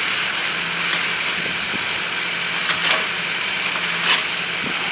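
Tractor engine running steadily, powering a three-point-hitch backhoe attachment. Sharp knocks come about three seconds in and again a second later.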